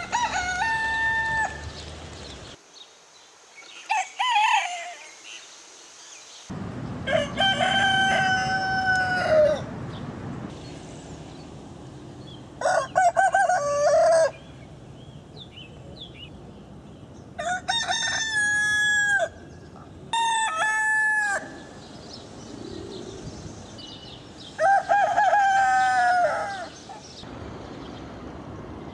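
Roosters crowing again and again, about seven crows a few seconds apart, each lasting one to two seconds, over a steady background hiss.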